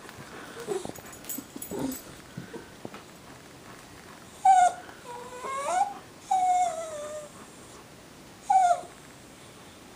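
A dog whining: a run of short, high whimpers starting about four and a half seconds in, most of them falling in pitch and one rising, with a last short whimper near the end.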